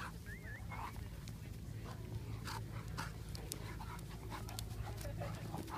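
Two dogs panting and huffing as they play-wrestle, with short scuffling noises.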